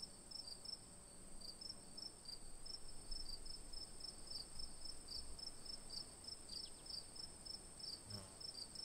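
Faint, high insect-like chirping, several short chirps a second, over a steady high-pitched whine.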